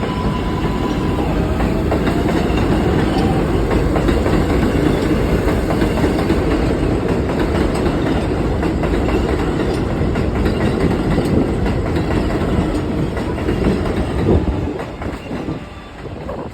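New York City subway train running past on the rails: a loud, steady rumble with wheel clatter, dying down about fifteen seconds in as the train clears.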